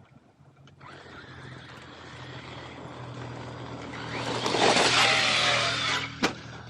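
RC monster truck driving and coming closer, its motor whine and tyre noise growing louder to a peak about five seconds in. A single sharp knock follows about six seconds in.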